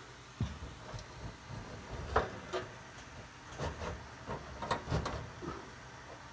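Irregular metallic clanks and knocks of a clothes dryer's sheet-metal heater housing being handled and fitted into place, with the sharpest knocks about two seconds in and around five seconds in.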